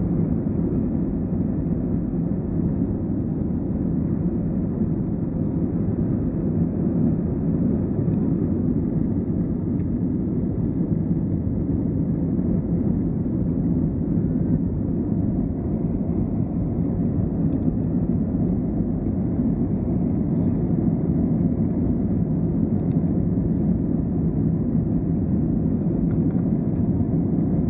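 Jet airliner's engines and airflow heard inside the passenger cabin during the takeoff and initial climb: a steady, low, even noise.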